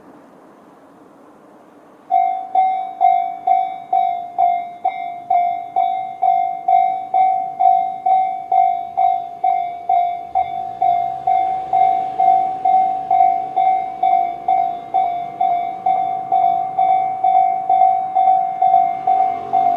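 Japanese electronic level-crossing warning bell of the Tobu 'sound C' type starting suddenly about two seconds in and ringing steadily about twice a second, signalling an approaching train. A low rumble joins about halfway through.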